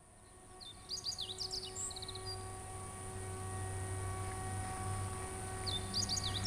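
A songbird sings the same short phrase twice, about a second in and again near the end: quick whistled glides up and down, ending in a rapid run of short notes. Underneath runs a steady low hum with a faint, thin high whine.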